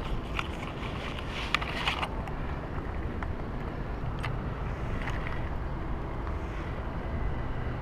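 Steady low outdoor rumble, with a few light clicks and a brief rustle from handling the fish and gear in the first couple of seconds.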